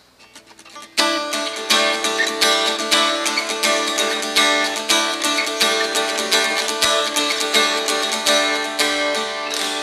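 Acoustic guitar strummed in a steady rhythm, the instrumental introduction to a song, starting about a second in.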